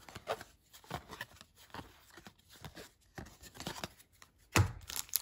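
Paper baseball cards handled by hand: light rustles, slides and taps of card stock, with a louder rustle about four and a half seconds in.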